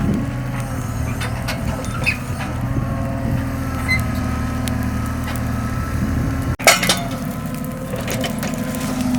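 Heavy machinery's engine running steadily, with scattered wooden knocks and cracks as logs are handled and burn. A louder knock comes about two-thirds of the way through.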